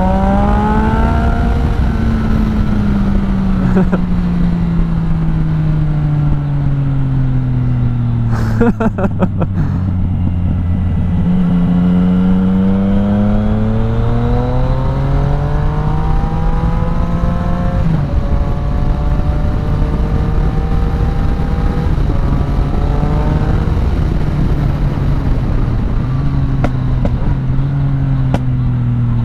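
Yamaha MT-09 Tracer 900's three-cylinder engine through an Akrapovic exhaust, heard from the moving bike. It revs up, then winds down on a closing throttle to a low steady note, with a brief run of clicks about nine seconds in. It then pulls up through the revs again, drops sharply once, and settles into a steady run with small rises and falls.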